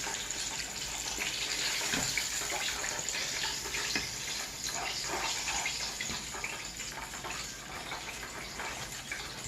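Battered chicken pieces frying in hot oil: a steady sizzle with fine crackling throughout.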